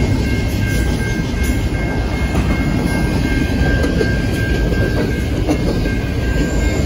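Double-stack intermodal train's loaded container well cars rolling past at speed: a steady heavy rumble of steel wheels on rail with clickety-clack over the rail joints, and a thin steady high whine running over it.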